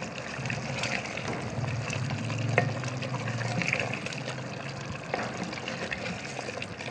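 Chicken and potato curry simmering in a clay handi while a wooden spoon stirs through it, with a few light knocks of the spoon against the pot.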